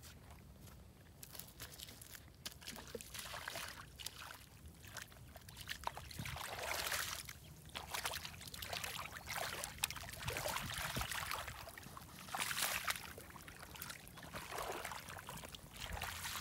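Hands scooping and sloshing through shallow muddy water in irregular splashes, quiet at first and louder from about six seconds in.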